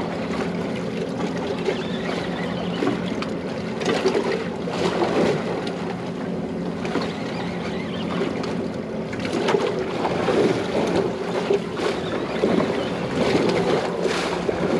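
Yamaha 300 outboard motor idling steadily, with wind on the microphone.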